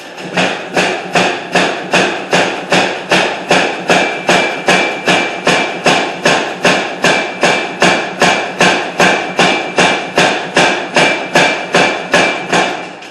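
Hammer blows forging an iron bar on an anvil, a steady run of about two strikes a second, with a faint ring from the metal through the middle of the run.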